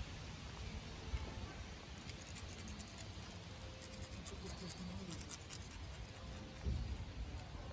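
A kitten's claws scratching and patting at a weathered wooden bench, light scratchy clicks over steady outdoor background noise, with a dull thump near the end.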